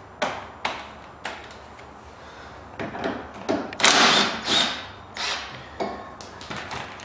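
A 9/16 socket tool backing out the bolt that holds a golf cart's rear shock: a series of sharp metallic clicks and clanks, with a louder, denser burst of about half a second near the middle.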